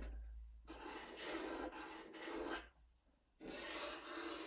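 Felt-tip marker pen rubbing across paper, drawing letters in a few long strokes with short pauses between them.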